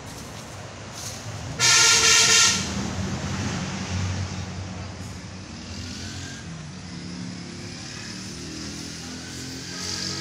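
A vehicle horn blasts once, loud, for about a second, about two seconds in. Around it a Sonalika tractor's diesel engine runs steadily.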